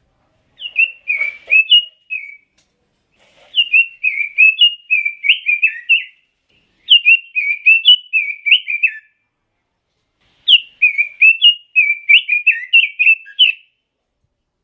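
Pekin robin (red-billed leiothrix) singing: four quick warbled phrases of clear, rising and falling whistled notes, each lasting two to three seconds, with short pauses between them.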